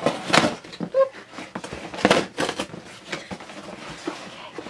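Taped cardboard shipping box being torn open by hand, the cardboard and tape ripping in several short bursts.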